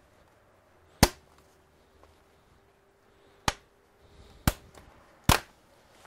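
Plastic retaining clips of an Acer Aspire laptop's bottom cover snapping loose as the panel is pried off: four sharp snaps, the first about a second in and the other three closer together near the end.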